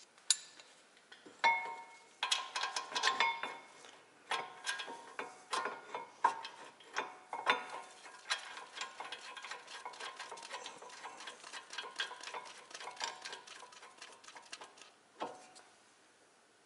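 Metal clinks and knocks of a 2012 Chevy Equinox's front brake caliper mounting bracket being set over the rotor and its bolts started, with a run of quick ticking through the middle. The ticks have a short metallic ring.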